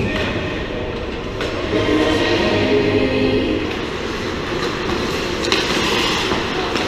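Ice-hockey rink during play: a steady hiss and rumble of skates scraping on the ice, echoing in the hall, with a single sharp knock of a stick or puck about five and a half seconds in.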